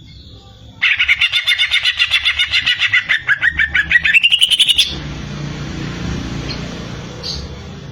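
Cucak ijo (green leafbird) singing a fast run of chattering notes, several a second, that climbs in pitch near the end and stops abruptly, followed by a steady hiss.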